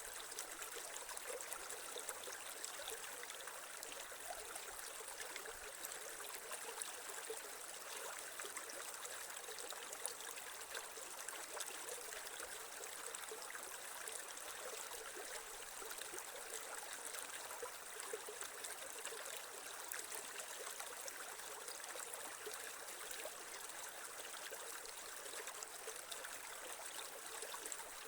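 Creek water flowing and trickling over stones in a steady babble, with small splashes throughout.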